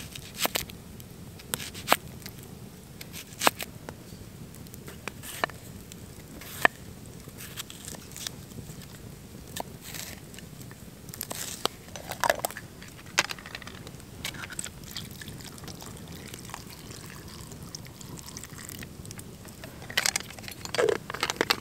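Knife cutting carrot and red pepper on a split-wood board: sharp, irregular taps of the blade on the wood every second or two, with a quicker run of clicks near the end.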